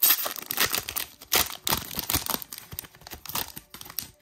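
Foil booster pack of trading cards being torn open and crinkled by hand: a dense, irregular run of crackling and tearing.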